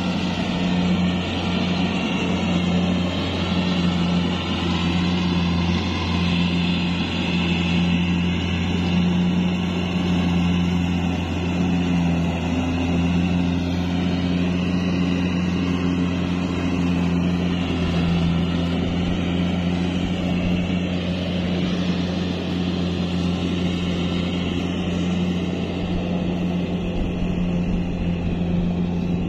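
Kubota DC70 Plus combine harvester running steadily while harvesting rice: a constant, even diesel engine note with the drone of its machinery.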